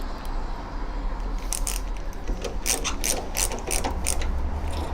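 Hand screwdriver driving wood screws into a mortice lock's forend, with a ratchet clicking in a steady run of about three clicks a second from about a second and a half in.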